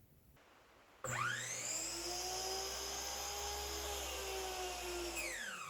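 A power tool's electric motor switched on about a second in, whining quickly up to speed and running steadily, then switched off near the end, its pitch falling as it winds down.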